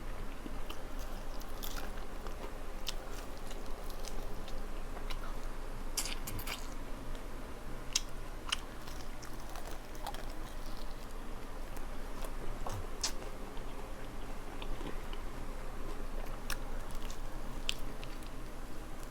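Close-up chewing and biting of crispy fried chicken wings, with scattered wet crunches and smacks throughout. A faint steady hum sits underneath.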